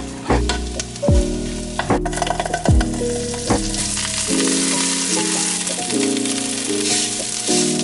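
Fried rice sizzling in a frying pan, the sizzle growing stronger about halfway through, over background music.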